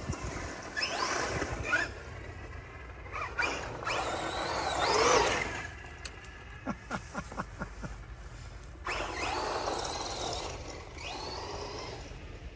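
Brushless electric motor of a 1/6-scale Losi 8ight X Super Lasernut RC buggy on a 6S battery, whining in three bursts of speed that rise and fall in pitch, the loudest a little before the middle. A quick run of ticks comes between the second and third bursts.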